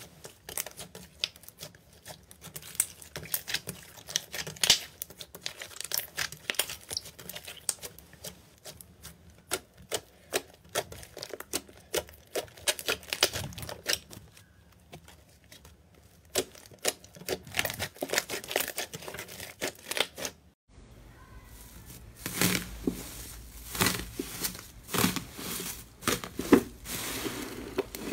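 Hands stretching and pressing soft fluffy slime, making irregular sticky clicks and small pops. About twenty seconds in, it switches to a black slime covered in gold foil being squeezed, with denser crackling.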